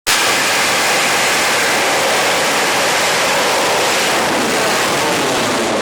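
Homemade bang fai rocket's black-powder motor firing: a loud, steady rushing hiss.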